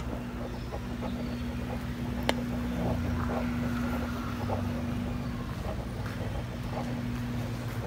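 A steady low mechanical rumble with a constant hum, and one sharp click a little over two seconds in.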